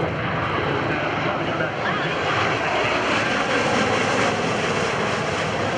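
Bell Boeing MV-22 Osprey tiltrotor flying past, its twin turboshaft engines and three-bladed proprotors making a loud, steady, deep noise that swells slightly about halfway through.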